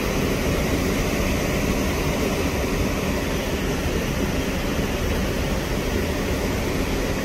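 Muddy floodwater pouring heavily over a reservoir's concrete spillway and crashing into the churning pool below, a steady rush of falling water. The reservoir is full and overflowing hard in flood.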